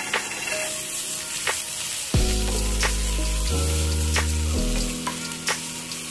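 Diced carrots and minced garlic sizzling in oil in a nonstick frying pan, stirred with a wooden spatula that scrapes across the pan about every second and a half. Background music with a deep bass line plays over it, louder from about two seconds in.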